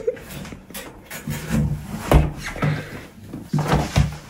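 Spin bike being climbed onto and off: a series of light knocks and clunks from its frame and pedals, with short low hums coming about every half second in the middle.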